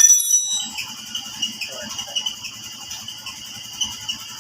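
Insects trilling steadily in two high-pitched bands. Right at the start comes a brief, loud high-pitched tone with several overtones, lasting well under a second.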